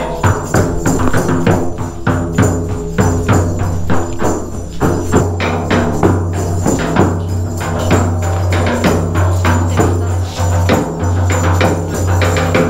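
Background music with a steady percussive beat and a sustained bass line.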